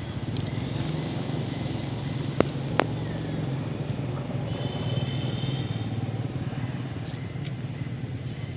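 Steady low rumble of a running engine, with two sharp clicks about half a second apart a little past two seconds in.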